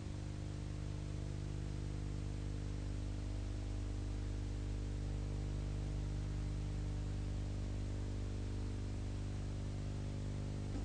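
Steady electrical hum with several even overtones under a constant hiss: background noise of the soundtrack, with no narration.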